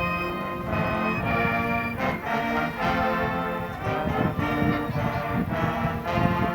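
Brass band music: trumpets and trombones playing a melody of held notes that change every half second to a second.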